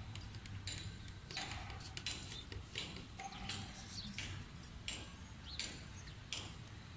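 Metal serving spoons clinking and scraping against steel plates, bowls and woks as food is dished out: many light, irregular clinks and taps, some with a brief ring.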